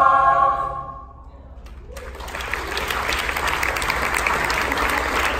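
A mixed high school choir holds its final chord, which fades out within the first second. After a short pause the audience breaks into applause about two seconds in, and the clapping keeps going.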